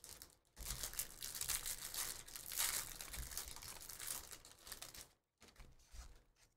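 Thin plastic wrapper of a Panini Absolute football card pack crinkling as it is torn and peeled off the stack of cards, dying down about five seconds in.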